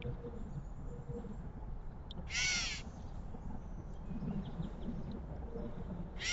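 A harsh, crow-like bird call, loud and about half a second long, sounds once about two and a half seconds in, and the same call starts again right at the end. Faint high chips and a low steady rumble lie underneath.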